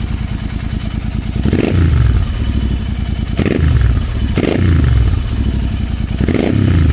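Royal Enfield Continental GT650's parallel-twin engine idling loudly through an AEW aftermarket exhaust with the dB killer removed, then revved in four quick throttle blips, each rising sharply and dropping back to idle.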